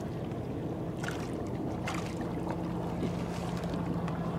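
A steady low hum, like a boat motor, with a few faint knocks.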